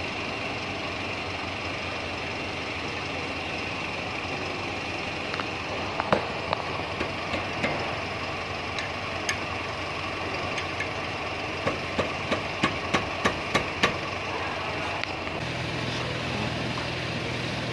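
Metal clicks and knocks from a wrench and brake parts being handled at a car's front disc brake caliper, including a quick run of about eight clicks partway through, over a steady mechanical hum. A lower steady hum joins near the end.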